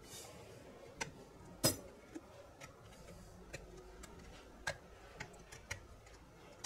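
Irregular small clicks and taps of a thin metal pry tool and fingers on a plastic speaker housing as the silicone-rimmed passive radiator is prised out and lifted free: about ten sharp clicks, the loudest a little under two seconds in.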